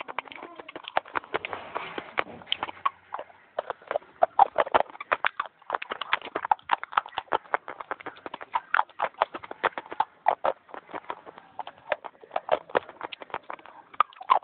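Close-miked crunching of dry white clay being bitten and chewed fast: rapid, sharp crackling crunches several times a second, with brief pauses between bites.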